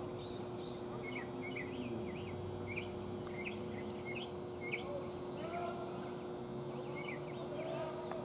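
Small birds chirping: many short, rising chirps in quick succession, easing off for a moment about six seconds in, over a steady low hum.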